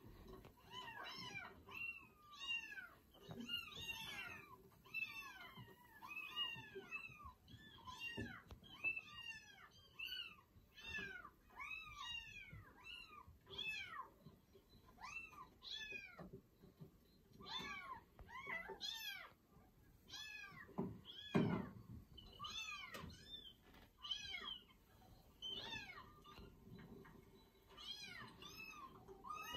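Several young kittens mewing over and over: short, high-pitched mews that rise and fall, a few a second and often overlapping, with one louder, deeper sound about two-thirds of the way through.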